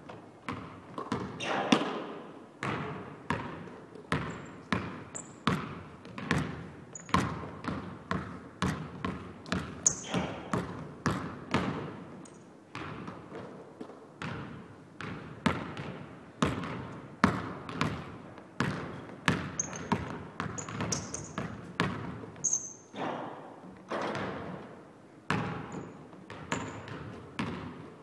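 Basketball bouncing on a hardwood gym floor as it is dribbled, about two bounces a second, each bounce echoing in the large hall.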